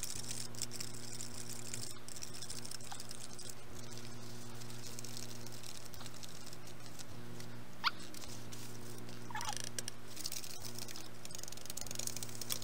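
Small plastic spoon stirring and scraping a candy mix in a plastic tray, a fine patter of scrapes and ticks with short rising squeaks of plastic on plastic about eight and nine and a half seconds in. A steady low hum lies underneath.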